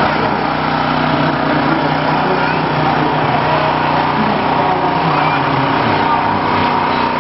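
A small engine running steadily, a constant drone with no change in pace.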